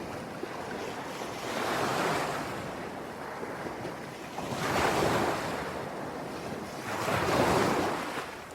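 Ocean waves surging and washing in three times, each swell rising and falling away, over a steady rush of surf.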